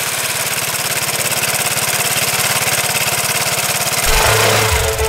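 Vespa scooter's single-cylinder engine idling steadily. Music with bass and guitar comes in about four seconds in.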